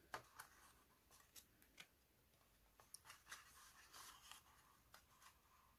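Near silence, with faint light taps and rustles of paper card being handled.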